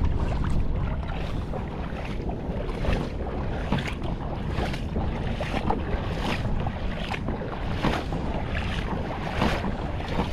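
Wind buffeting the microphone, with regular footsteps about once a second.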